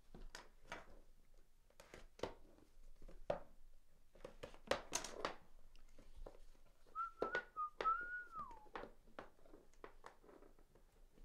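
A person whistles a short wavy phrase, about a second and a half long, ending in a falling glide. Scattered clicks and crackles come from a sealed card box being worked open by hand, loudest around the middle.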